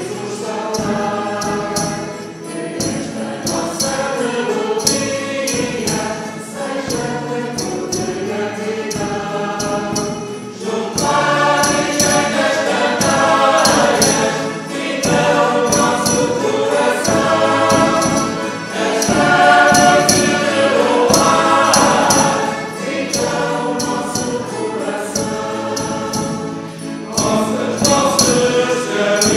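Mixed folk choir singing a carol in unison, accompanied by accordion, guitars and a tambourine jingling a steady beat. The singing grows louder about eleven seconds in.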